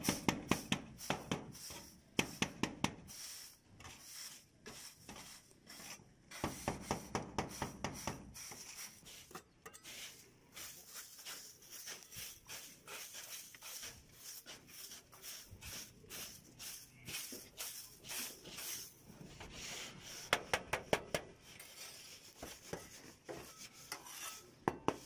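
Stick brooms sweeping thick volcanic ash off roofing, in runs of quick scratchy strokes, with a dustpan scraping through the ash.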